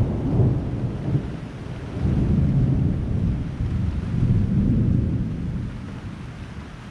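Thunder rumbling in a long roll that swells twice and dies away near the end, over the steady hiss of rain.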